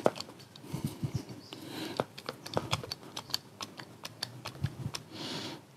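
Irregular light clicks and taps from handling a hand hydraulic crimping tool and a cable lug seated in its die, with a brief soft rustle near the end.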